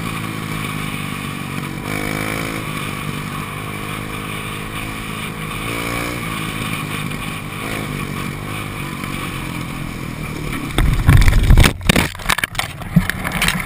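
Dirt bike engine running under way along a trail, rising in revs twice. About eleven seconds in, a crash: heavy thuds and clattering impacts as the bike and rider go down after the handlebars are clipped by another passing rider.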